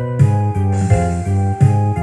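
Instrumental music, with no singing: sustained chords over a strong bass line, played with a regular rhythm.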